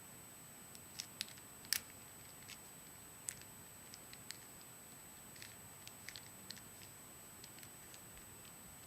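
Rubik's Cube layers being twisted by hand: irregular plastic clicks and clacks, a couple of dozen, the loudest about a second and a half in.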